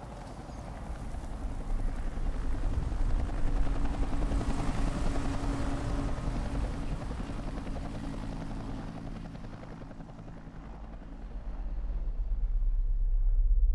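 Low rumbling, whooshing sound effects without a tune. They swell a few seconds in, ease off, then a deep rumble builds near the end.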